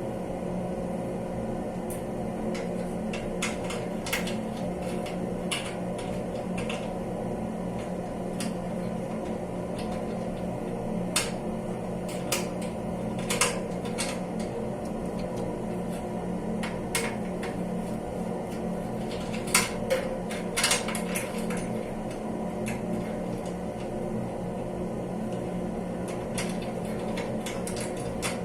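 A steady hum runs throughout, with scattered sharp clicks and knocks on top, a small cluster of them about two-thirds of the way through.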